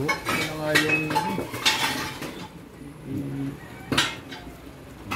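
Steel hand tools, a ratchet and socket extension, clinking against each other and against the engine's metal brackets while an engine mount is being worked on: a few sharp metallic clinks, the clearest about a second and two seconds in and again near four seconds. Low voices talk in the background.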